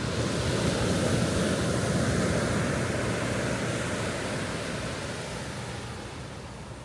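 Ocean surf on a beach: a wave washes in, swelling over the first couple of seconds, then slowly fades as it draws back.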